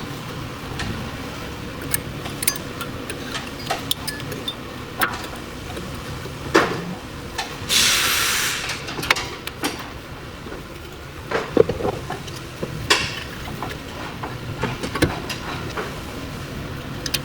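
Hand-tool work on a car's front brake assembly: scattered clicks and knocks of metal parts and tools, with a short hiss about eight seconds in.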